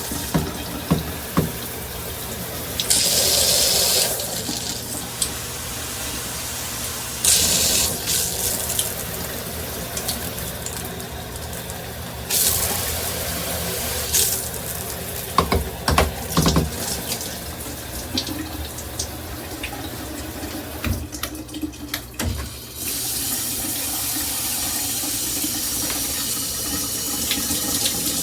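Water spraying from a Ryamen dual shower head combo, a steady rush that swells and drops several times as the flow changes, with a few sharp knocks scattered through it.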